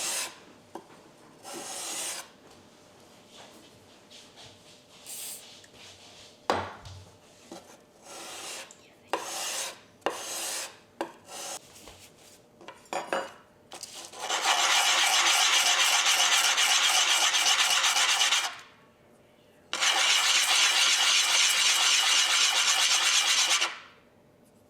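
Hand plane blade being sharpened by rubbing it on 600-grit sandpaper: a few separate short scraping strokes, then two long stretches of fast, continuous abrasive rubbing, each about four seconds, that stop abruptly.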